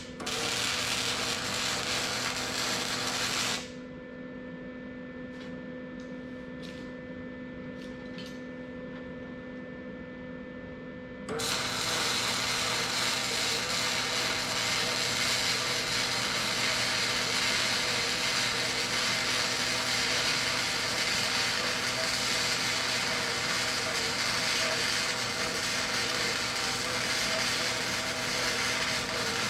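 Power tool cutting steel plate, most likely an angle grinder: a steady, loud grinding hiss for the first few seconds, a quieter stretch of steady hum, then grinding again from about 11 seconds in to the end.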